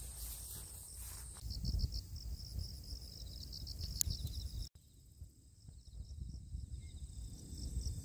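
Crickets and other insects chirring in a steady, high, pulsing chorus over a low rumbling noise. The sound breaks off for an instant about halfway through, then carries on.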